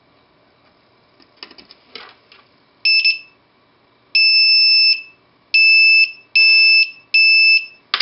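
A circuit-board buzzer sounds a steady high-pitched tone in five bursts of uneven length, starting about three seconds in. It switches on each time a magnet closes a reed switch wired to it. A few faint handling clicks come before the first beep.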